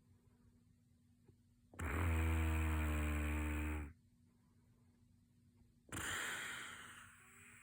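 A sleeping person snoring: one loud, buzzing snore lasting about two seconds, then a shorter, breathy breath that fades out.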